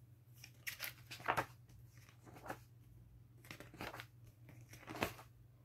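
Pages of a large, heavy book being turned: a series of short paper rustles and crinkles, the clearest about a second and a half in and again near the end.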